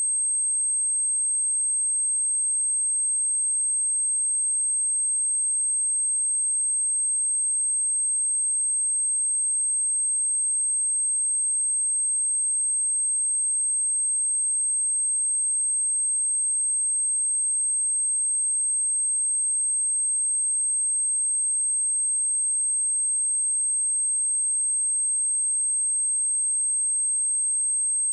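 A pure 8377 Hz sine-wave test tone: one steady, high-pitched whistle held at an even level without a break, used to vibrate water and dust out of a speaker.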